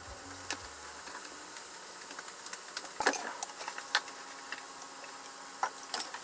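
Soy-based sauce sizzling steadily in a frying pan with quail eggs, with a few light clicks and taps over it. Low background music fades out in the first second.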